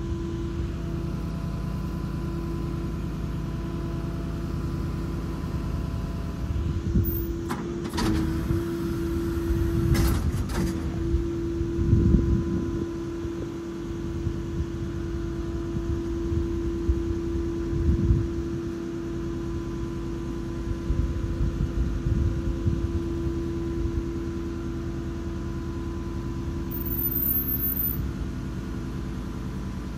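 A Duramax 6.6 V8 turbodiesel in an International CV515 tow truck, running steadily with a low rumble and a constant hum. A couple of sharp clicks come about 8 and 10 seconds in.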